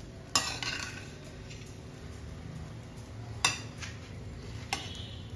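Perforated stainless-steel skimmer clinking and scraping against a stainless-steel pan while stirring fried rice. There are three sharp clinks: about half a second in, about three and a half seconds in, and near the end, with a short stretch of scraping after the first.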